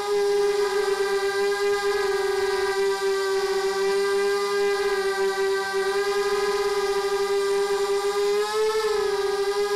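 FPV quadcopter's four small brushless motors and 5-inch carbon props whining at a steady high pitch. Near the end the whine rises briefly and drops back as the motors speed up.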